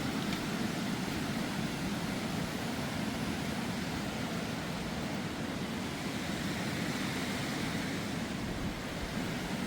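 Steady rushing of a fast mountain river, an even noise that does not change.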